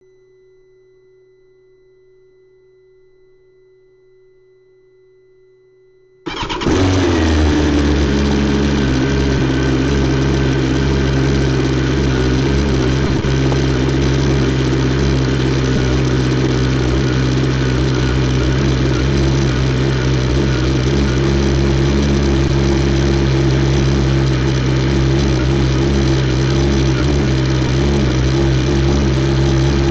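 BMW S 1000 XR's inline-four engine with an Akrapovic exhaust starting up about six seconds in, after a faint steady hum. Its pitch drops slightly just after it catches, then it holds a steady idle.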